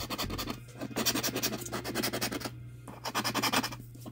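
A lottery scratch-off ticket being scratched off with a coin: quick back-and-forth rasping strokes in runs, broken by two short pauses, over a faint steady low hum.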